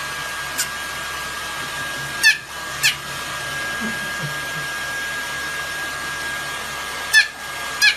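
Hair dryer running steadily with a thin high whine, blow-drying a puppy's fur. A few short, sharp high chirps cut in, two close together a couple of seconds in and two more near the end.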